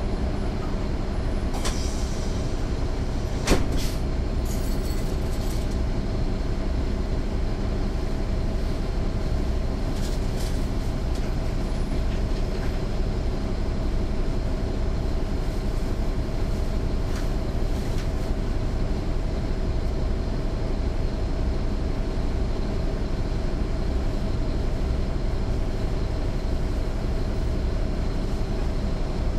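Caterpillar C13 ACERT diesel engine of a NABI 416.15 transit bus, heard from inside at the rear over the engine, running steadily. A sharp knock about three and a half seconds in, with a few light rattles.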